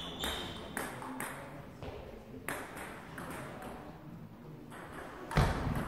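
Celluloid-style table tennis ball clicking off the table and rackets: several sharp, separate ping-pong clicks at uneven spacing, and a louder thud near the end.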